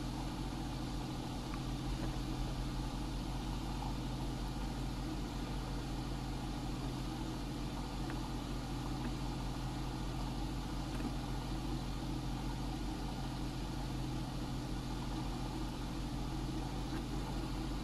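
Steady low hum of background room noise, several low tones held level under a faint hiss, with no sudden sounds.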